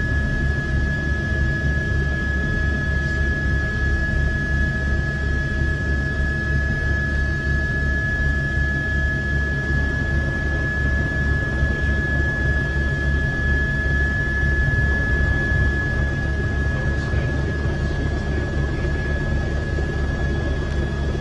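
Helicopter in flight, heard from inside the cabin: the engine and rotor run steadily, with a fast low throb under a steady high whine.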